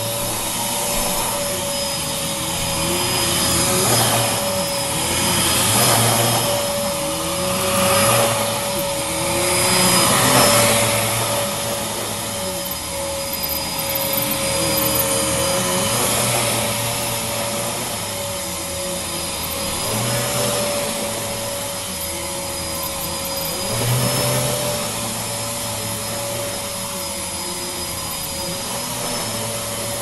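Upright vacuum cleaner running on carpet, a steady motor whine over the rush of suction. It swells and eases roughly every two seconds as it is pushed back and forth.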